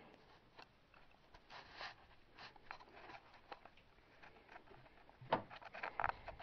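Faint handling noise: scattered light clicks and rustles, with a short cluster of louder knocks about five seconds in.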